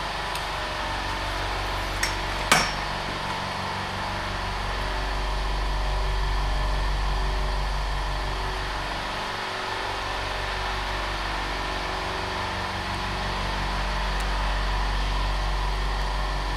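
Steady low machine hum with two sharp clicks a little over two seconds in, the second louder.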